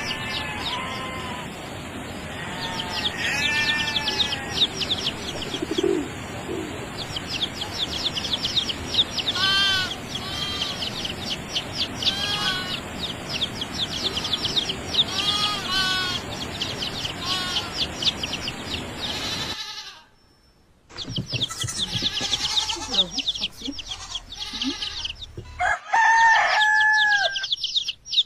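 Chickens calling, with a rooster crowing near the end, over dense high-pitched chirping. The sound drops out briefly about twenty seconds in.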